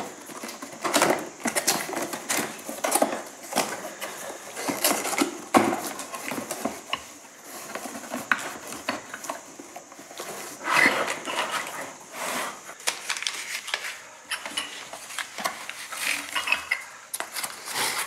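A wind chime being unboxed: cardboard box and paper packing rustling and tearing, with repeated clicks, knocks and light clinks as the contents are handled.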